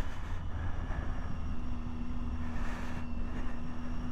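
Triumph Tiger 800's three-cylinder engine running at a steady road speed, a steady drone under wind and road noise, with a brief rise in hiss about two and a half seconds in.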